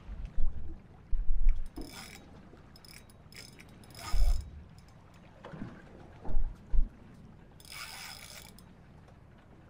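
A fishing reel's mechanism clicking in four short bursts while a hooked blue shark is played on the rod, with low thumps on the microphone in between.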